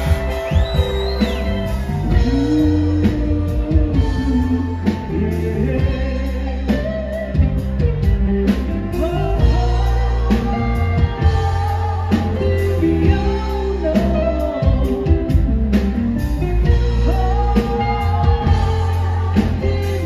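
Live rock band playing with a male lead vocal, guitars, bass and drum kit on a steady beat.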